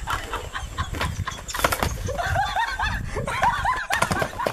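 A horse whinnies, a long quavering call in the second half, over the knocks of hoofbeats as it gallops off.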